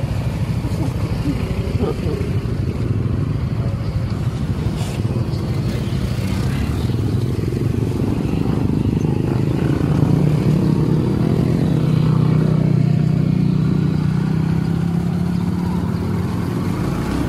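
Motorcycle engine running on the road, rising in pitch about ten seconds in and then holding steady.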